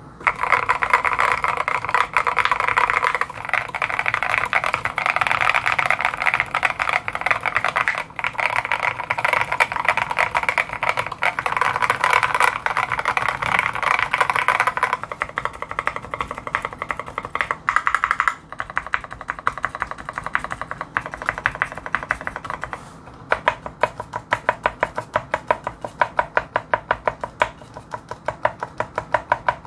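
Mechanical keyboard with lubed and filmed Gateron Ink Black linear switches being typed on: a fast, dense run of keystrokes for about fifteen seconds, then slower, more evenly spaced strokes.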